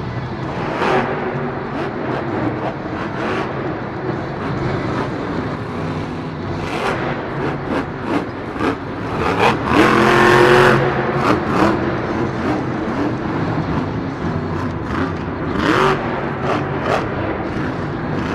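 Captain's Curse monster truck's supercharged V8 engine revving and running hard, with the pitch rising and falling. It is loudest about ten seconds in, and sharp cracks come here and there.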